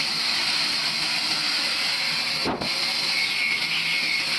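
A loud, steady hiss with a brief dip about two and a half seconds in.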